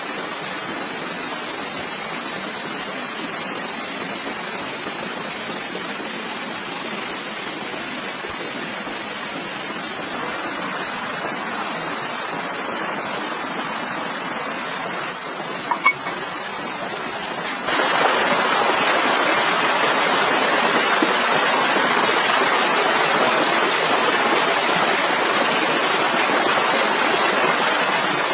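Forest ambience: a steady high-pitched insect drone over an even rushing hiss, like running water or rain. The rushing gets louder suddenly about two-thirds of the way through, and there is one small click shortly before.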